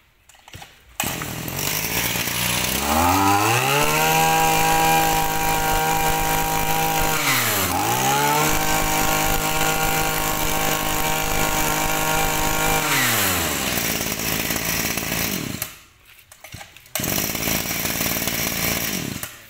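Small 23 cc two-stroke brush cutter engine (32 mm bore) starting and revving up to high speed. Its pitch dips sharply about halfway through when the throttle is let off, climbs back to full revs, then winds down and stops.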